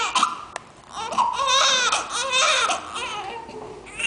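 Newborn baby crying in wavering wails, with a short lull about half a second in and a fresh cry starting near the end.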